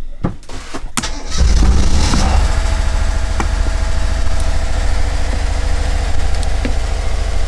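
A Northern Lights marine diesel generator starting up about a second and a half in, then running steadily.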